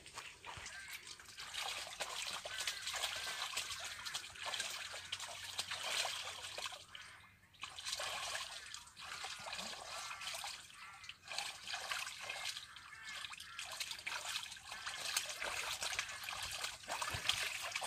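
Domestic geese bathing in a small cement pool: water splashing and sloshing unevenly as they dip and flap, swelling and easing, with a brief lull about halfway through.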